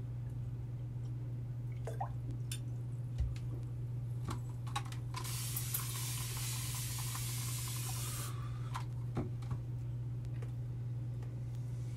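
Sink faucet running for about three seconds near the middle, with small clicks and knocks around it, over a steady low hum.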